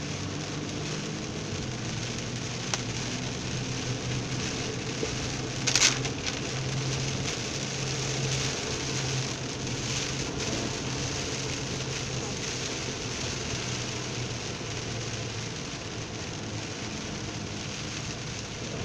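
Heavy rain pattering on a car's roof and windshield, heard from inside the moving car over a steady low engine hum. A brief, louder rush of noise comes about six seconds in.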